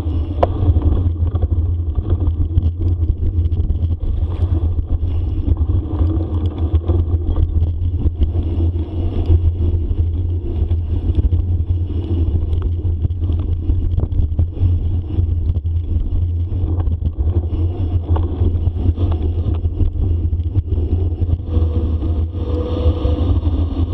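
Bicycle riding fast along a dirt forest trail: a steady heavy rumble of wind on the microphone, with tyre noise and frequent small rattles and knocks from the bike over the bumps.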